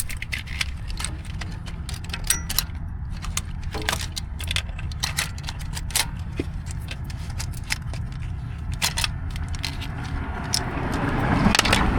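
Old injector wiring harness being pulled out through the back of a Detroit Series 60 engine head, its connectors and wires giving many small clicks and rattles against the metal, over a low steady rumble.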